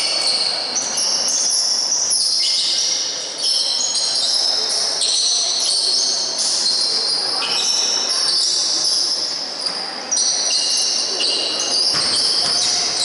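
Sounds of a basketball game in play: sneakers squeaking on the court, the ball bouncing, and voices from players and spectators.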